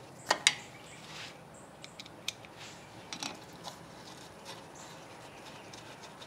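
Small metallic clicks and ticks of a Phillips screwdriver seating in and turning a rotor retaining screw into the face of a brake rotor's hub. Two sharp clicks about half a second in are the loudest, followed by scattered fainter ticks.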